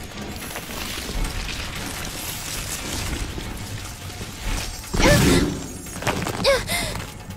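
Cartoon action soundtrack: dramatic background music with whooshing and impact sound effects as magical vines lash and coil. About five seconds in it grows louder, with short pitched cries or vocal sounds near five and six and a half seconds.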